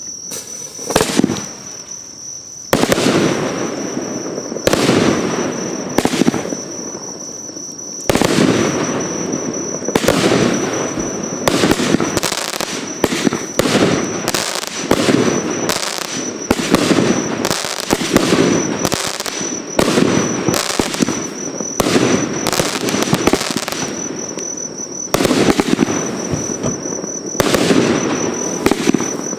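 A 48-shot, 26 mm fireworks battery (cake) firing in sequence: sharp reports every one to two seconds, coming faster through the middle. A steady high-pitched whine runs underneath.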